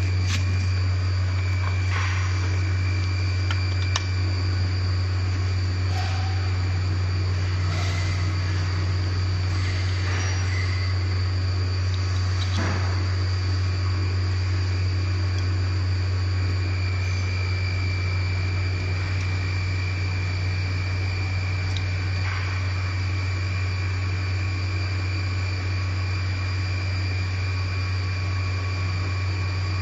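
A steady low machine hum with a thin high whine above it, broken now and then by faint clicks and light knocks as the power feed unit is fitted onto the milling machine's Z-axis shaft.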